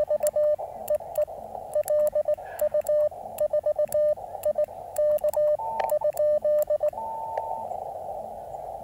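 Morse code (CW) from an amateur radio transceiver: a steady-pitched tone keyed on and off in dots and dashes over the radio's narrow band of hiss. A second, higher-pitched CW tone briefly joins it in the last part, then only the band hiss remains.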